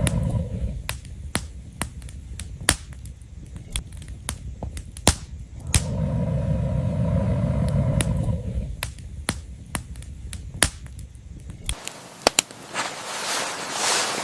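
Firewood burning in an outdoor fire pit, crackling with irregular sharp pops and snaps over an on-and-off low hum. Near the end the hum drops away and a rushing hiss swells and fades.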